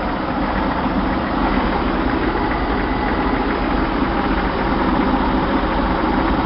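Chevrolet straight-six with a Weber 32/36 two-barrel carburetor idling steadily at running temperature, its carburetor vacuum leak fixed.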